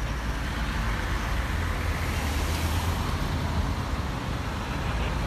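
Road traffic noise: a steady rumble of car and truck engines and tyres on a busy road.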